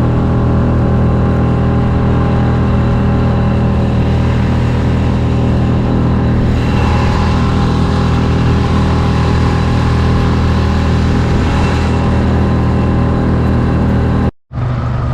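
6 hp outboard motor on a micro skiff running steadily under way, still being broken in, with a rushing hiss that grows louder through the middle. The sound cuts out for a moment near the end.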